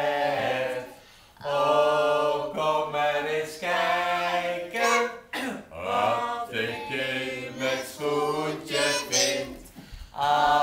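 A group of children singing a Dutch Sinterklaas song together without accompaniment, in long held notes with short breaths between lines.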